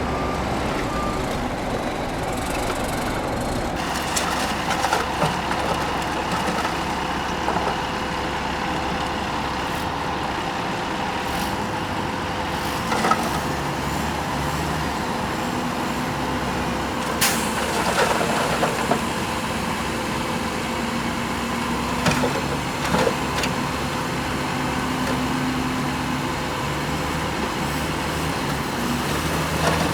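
Heavy diesel earthmoving machinery running steadily under load, its engine note shifting now and then, with a few sharp metallic clanks and knocks.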